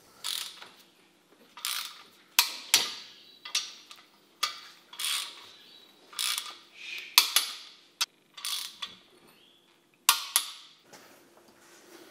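Ratcheting torque wrench tightening the main bearing cap bolts on a Holden 304 V8 block: about a dozen short rasping ratchet strokes, unevenly spaced, with a few sharper metallic clicks among them, as the caps are torqued back down.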